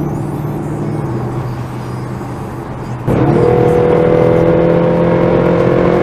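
Bentley Continental GT V8 S's 4.0-litre twin-turbo V8 with sports exhaust running at light throttle, then about three seconds in the throttle opens. The engine note jumps sharply louder and climbs in pitch as the car accelerates, then holds loud and steady.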